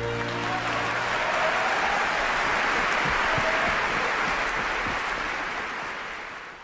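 Opera house audience applauding as the aria's orchestral accompaniment ends, the clapping dying away near the end.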